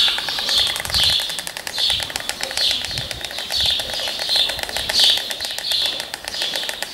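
White storks clattering their bills on the nest: a rapid, steady rattle of clacks, with short high chirps repeating about twice a second.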